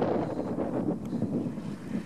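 New Holland TS115 tractor's diesel engine running, heavily buffeted by wind blowing across the microphone.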